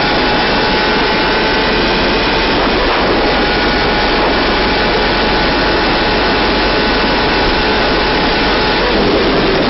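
Sport motorcycle engine held at high, steady revs while cruising fast, under a loud, even rushing noise.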